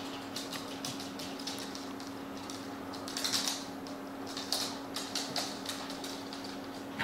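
Small dogs' claws clicking irregularly on a hardwood floor as they walk and mill about, with two louder scuffles about three and a half and four and a half seconds in.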